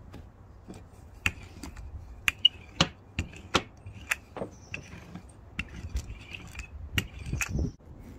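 A wooden rolling pin and board being handled while dough is rolled out, giving a run of irregular sharp clicks and knocks of wood on wood.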